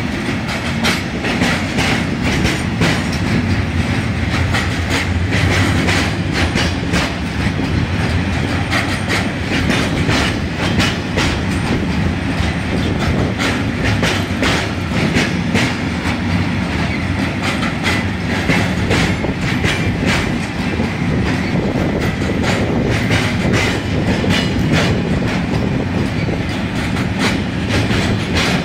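Freight train of steel-coil flat wagons and open wagons rolling past, a steady rumble with a continuous clatter of wheels clacking over rail joints.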